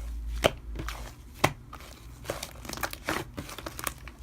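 Handling noises close to the microphone: scattered light clicks and rustling, with one sharper click about one and a half seconds in.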